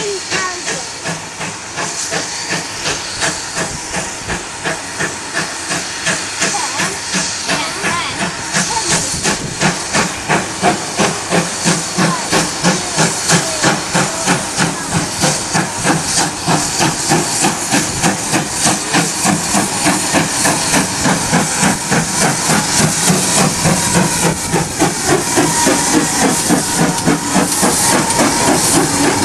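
Steam locomotive 9681, a GWR pannier tank, working slowly with a ballast train: a steady hiss of steam under a regular chuffing exhaust beat that grows louder as it creeps up.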